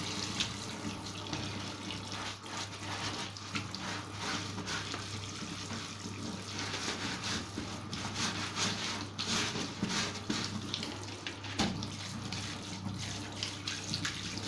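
Water running from a tap and splashing unevenly over a vacuum cleaner part being rinsed clean in a sink.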